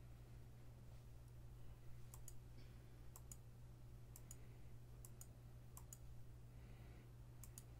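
Faint, sharp double clicks, six quick pairs spaced roughly a second apart, over a steady low electrical hum.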